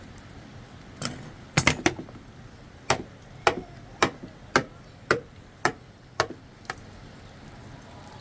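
A run of about a dozen sharp strikes, a few close together about a second in, then steady blows about twice a second until nearly the end, each with a short ring.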